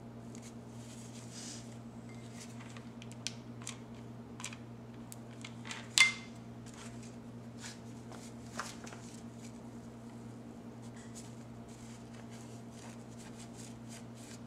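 Artificial rose petals being handled and folded: soft rustles and scattered light clicks, with one sharper click about six seconds in, over a steady low hum.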